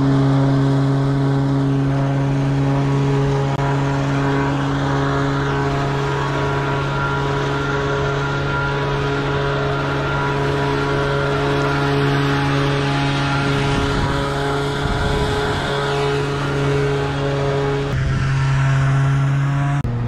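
A 4WD's engine running steadily at one held speed: an even, unchanging drone.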